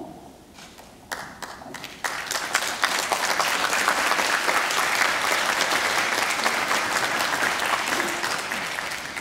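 Audience applauding: a few scattered claps about a second in, swelling into full, steady applause about two seconds in and easing off near the end.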